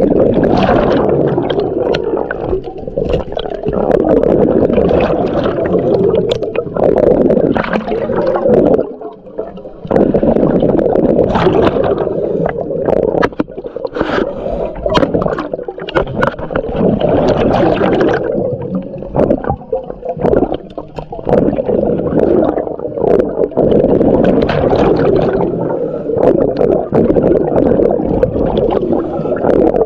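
Underwater sound through a camera housing: a muffled, constant rush of water and gurgling with scattered clicks and knocks as the diver moves. The level drops briefly about nine seconds in.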